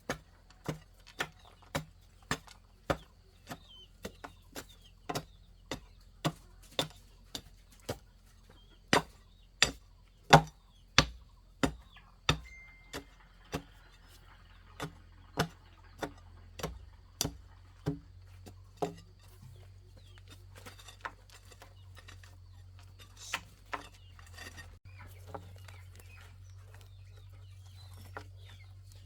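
Repeated sharp strikes of a tool jabbed down into soil, about two a second, thinning out after the first twenty seconds or so: earth being tamped down to settle it.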